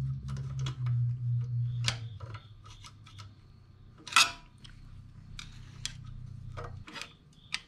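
Scattered metallic clicks and scrapes of a screwdriver prying at the exhaust valve spring in a small snowblower engine's valve chamber, worked by hand without a valve spring compressor. The sharpest click comes about four seconds in. A steady low hum runs under it and stops near the end.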